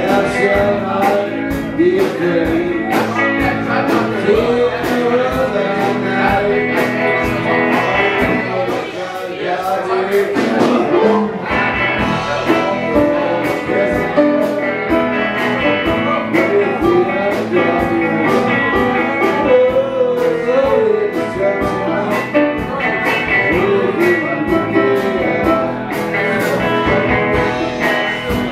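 Live band playing electric guitars, bass and keyboard over a steady beat, with a man singing.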